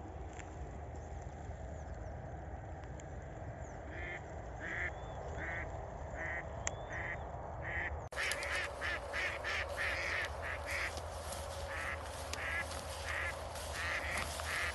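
A hen duck quacking in a series of short calls, a live decoy duck calling to bring in drakes. After a cut about eight seconds in, the quacks are louder and come closer together. Wind rumbles on the microphone underneath.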